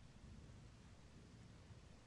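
Near silence: a faint, steady low rumble and hiss with no distinct thunder clap.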